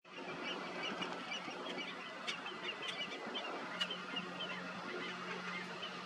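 Birds calling outdoors: a busy chatter of many short, high chirps with a few sharp ticks over a steady background hiss.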